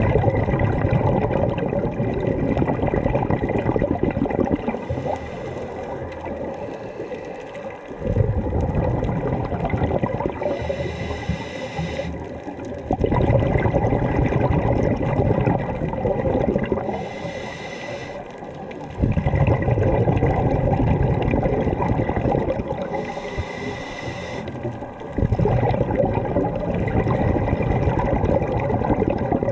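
Scuba diver breathing through a regulator underwater: each exhalation is a burst of rumbling, gurgling bubbles lasting four to five seconds, followed by a short hiss of inhalation, repeating about every six seconds.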